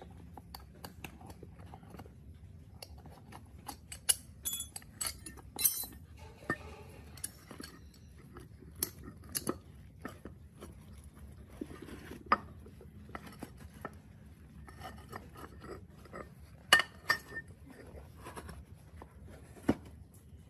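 Steel tyre levers clinking and scraping against the rim of a small dirt-bike wheel as a knobby tyre is pried off, with the rubber rustling and shifting. A handful of sharp metallic clinks stand out among the irregular scrapes and knocks.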